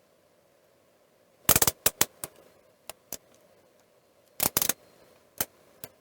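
Sharp clicks and taps of small hard objects: a quick rattling cluster, a few single clicks, a second quick cluster, then two more single clicks.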